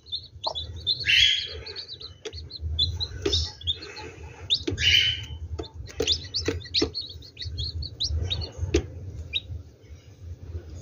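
Newly hatched chicks peeping over and over, short high chirps, under a brooding hen. Bursts of rustling and a few clicks come and go as eggs are taken out from beneath her.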